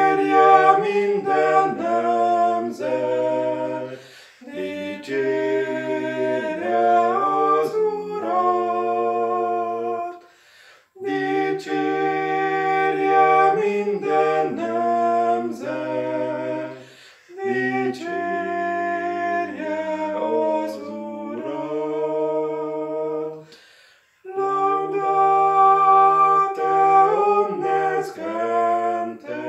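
A man and a woman singing a cappella in two parts, a lower and a higher voice, in a slow Latin chant. The phrases are several seconds long, with short breathing pauses between them.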